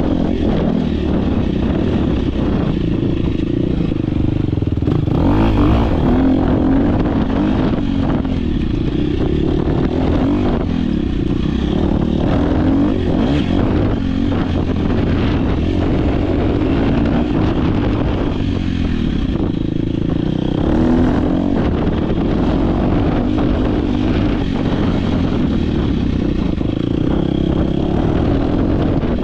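Dirt bike engine heard from the rider's onboard camera, its pitch rising and falling continually as the throttle is worked on and off through a race test, with a clatter of knocks from the bike over rough ground. Two stronger throttle surges come about five seconds in and again past the twenty-second mark.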